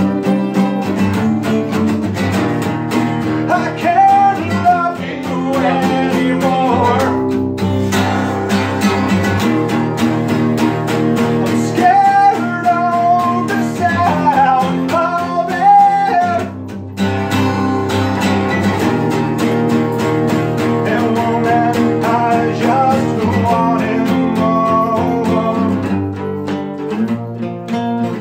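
Acoustic guitar strummed together with an acoustic bass guitar, and a male voice singing a rock song over them. The music breaks off briefly about halfway through, and the voice drops out near the end while the guitars play on more quietly.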